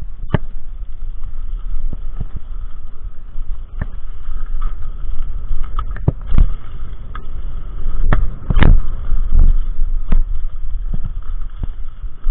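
Mountain bike ridden fast over a dirt forest trail: steady wind noise on the microphone, with the bike rattling and knocking over bumps. There are several sharp knocks, the loudest about eight and a half seconds in.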